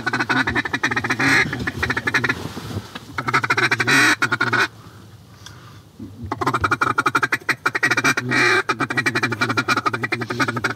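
A hand-blown duck call sounding long runs of fast quacks and chatter to work a circling duck, in three stretches with a short break about two seconds in and a longer one near the middle.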